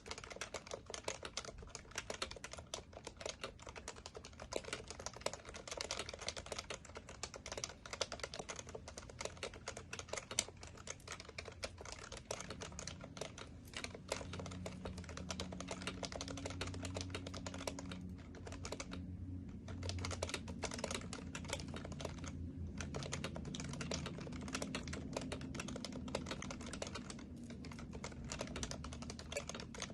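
Steady, fast typing on an HHKB Professional Classic keyboard with Topre capacitive switches: a dense run of key presses with a couple of brief pauses a little past the middle. A low hum comes in underneath about a third of the way through.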